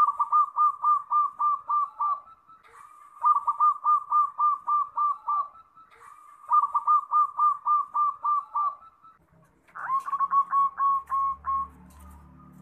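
Zebra doves (perkutut) cooing: three phrases of quick rolling coos, about two seconds each, at about four notes a second with short gaps between. About ten seconds in, a different zebra dove gives a shorter cooing phrase over a low hum.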